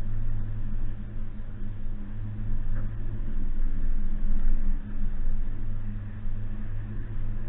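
Suzuki Jimny's four-cylinder petrol engine running at steady low revs while driving, a low even drone with some rumbling noise that rises and falls in loudness.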